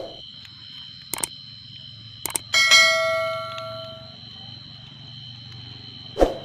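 A single metallic clang about two and a half seconds in, ringing out for about a second and a half, with a few sharp clicks just before it and dull knocks near the start and end. A steady high chirring of insects runs underneath.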